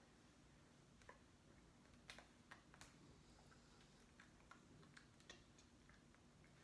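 Near silence: room tone with faint, scattered small clicks and taps, irregularly spaced, from a person signing with her hands.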